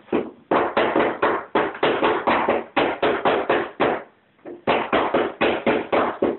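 Rapid knocking on a hollow plastic toddler slide and climber, about five knocks a second, in two runs with a short break about four seconds in.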